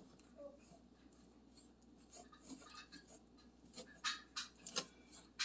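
Fingers rubbing and scraping dry spice powder around a ceramic plate: faint, irregular scratching, with a few sharper clicks against the plate about four to five seconds in.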